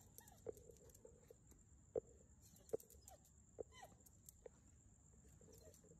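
Faint sounds of a pit bull and a beagle sniffing each other up close: soft snuffles and a handful of short, sharp ticks, the loudest about two and three seconds in.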